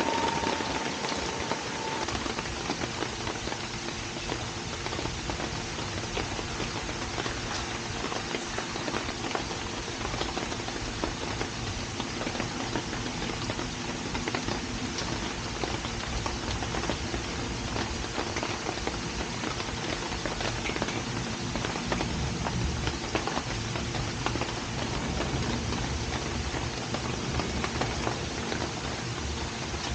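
Steady rain falling, countless drops pattering on a surface, with a faint steady hum underneath.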